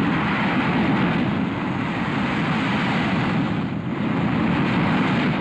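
Gloster Meteor twin-jet fighters flying low past, their jet engines making a loud, steady rushing noise.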